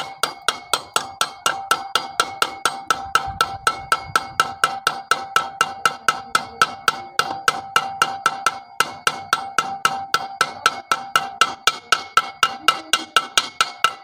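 Hammer blows on a steel drift rod, about four a second, driving a ball bearing into its bore in the Honda CD-70's aluminium crankcase half. Each blow is a sharp knock with a ringing metallic tone.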